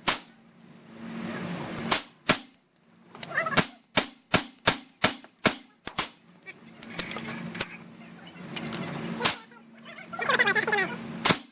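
AR-15 with a CMMG .22LR conversion kit firing high-velocity .22LR rounds: about a dozen sharp shots, unevenly spaced, with a quick run of them between about two and six seconds in.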